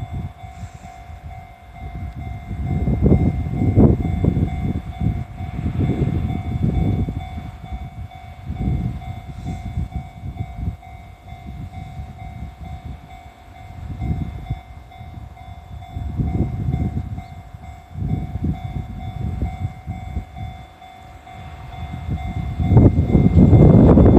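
Slow freight train wagons rolling past, the wheels knocking over the rail joints in irregular clusters, under the steady ringing tone of a Japanese level crossing alarm. About 23 seconds in, a much louder, even rushing noise starts and the alarm tone is no longer heard above it.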